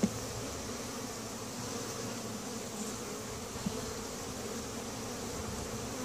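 Honey bees buzzing in a steady, dense hum around an opened hive, a few hundred of them in the air because the hive is being worked without smoke.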